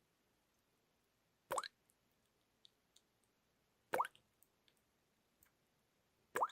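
Water drops falling one at a time into water, three clear plops about two and a half seconds apart, each with a quick rising pitch, and a few much fainter small drips between them.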